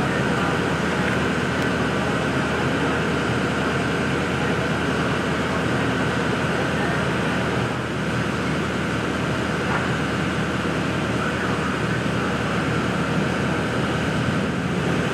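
Steady engine noise: a constant drone that does not change.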